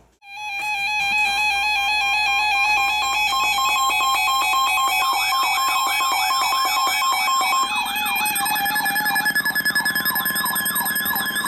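Electronic alarm tones: a buzzy tone flipping rapidly between two pitches, joined about five seconds in by a siren sweeping quickly up and down. A further steady tone comes in near the end.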